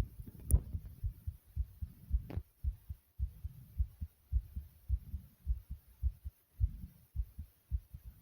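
Human heartbeat, fast and thumping after exercise: paired lub-dub beats in a quick, steady rhythm. A sharp click comes about half a second in and a brief scrape about two seconds in.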